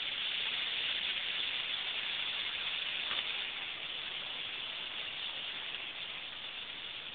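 A huge roosting flock of bramblings calling all at once, their countless calls merging into one continuous hissing wash. It eases off slightly near the end.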